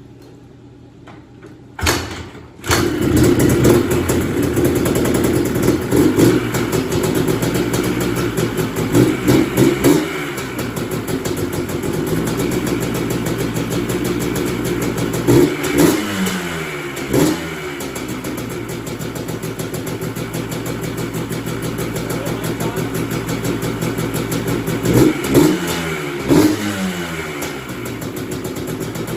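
Yamaha Blaster's single-cylinder two-stroke engine kick-started on choke, catching about two and a half seconds in, then running with several throttle blips, the revs falling back to a low idle after each.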